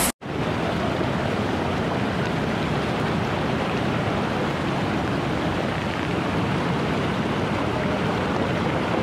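Steady, even rushing of a flooded mountain river, with no pauses or distinct events.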